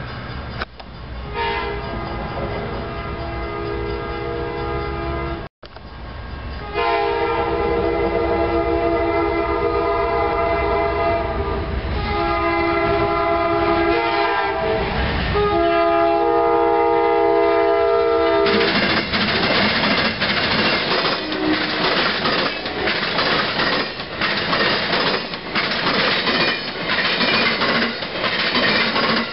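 Amtrak passenger train's multi-note horn sounding a series of long blasts as it approaches. About 18 seconds in the horn stops, and the steady, rhythmic clickety-clack of the passenger cars' wheels over the rail joints takes over as the train passes close by.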